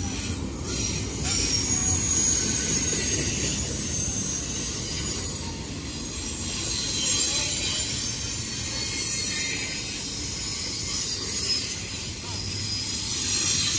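CSX double-stack intermodal freight train passing at close range: a steady rumble of wheels on rail, with high-pitched wheel squeal coming and going over it, strongest near the start, in the middle and near the end.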